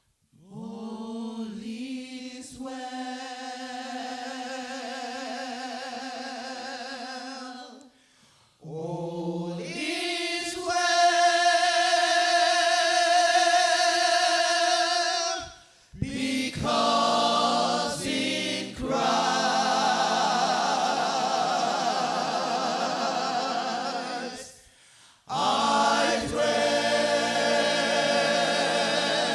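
Gospel choir singing in harmony, holding long sustained chords in separate phrases, with brief pauses about eight, sixteen and twenty-five seconds in; loudest in the second phrase.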